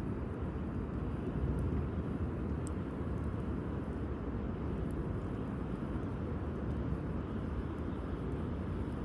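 Wood campfire burning, with a few sharp crackling pops over a steady low rumble.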